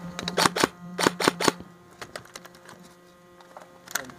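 Battery-powered airsoft guns firing: two short rapid bursts of sharp cracks in the first second and a half, then a couple of single shots near the end.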